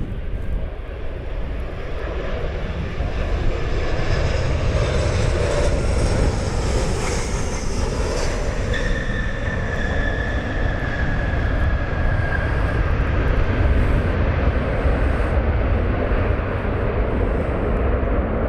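Jet airliner passing close by on approach, its engines a high whine that slides down in pitch as it goes past, over heavy wind rumble on the microphone from strong gusts.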